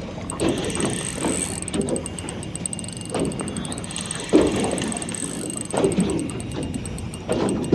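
Fishing reel ratcheting and clicking in rapid ticks while a hooked flathead is played, with dull knocks every second or so.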